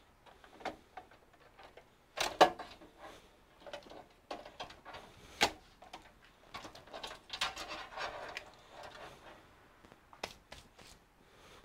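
Power supply cables and plastic connectors being handled and pulled inside a desktop PC case: an irregular run of clicks, knocks and rustles, the loudest knocks about two and a half and five and a half seconds in, and two sharp clicks near the end.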